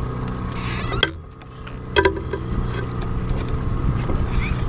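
Small 6 hp outboard motor running steadily at trolling speed, with wind and water noise around it. About a second in the sound drops away briefly, and a few sharp clicks and knocks come through.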